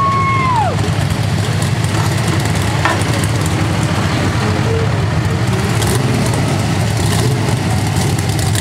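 Engines of the pulling truck and nearby tractor idling with a steady low rumble. A short whistle-like tone is heard at the very start and falls away within a second.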